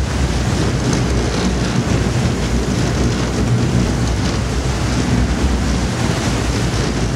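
Steady wind rumbling on the microphone over the wash of the sea, with the low, even hum of the boat's engine underneath.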